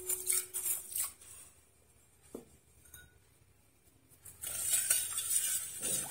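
A steel spoon clinks against a ceramic bowl as coarse crystal salt is scooped and tipped into a steel pot of brine. From about four seconds in, the spoon stirs the salt into the warm water and vinegar, scraping the pot as the water swishes.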